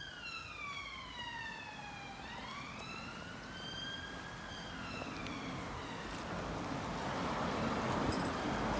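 Police car siren wailing: one slow cycle that falls in pitch, rises again from about two seconds in, then falls and fades out after about six seconds. A rushing noise grows louder as the siren fades.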